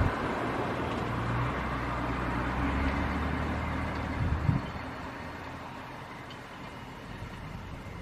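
Fendt 724 tractor's diesel engine running under load while pulling a potato harvester, with a steady mechanical rumble. It grows noticeably quieter about halfway through.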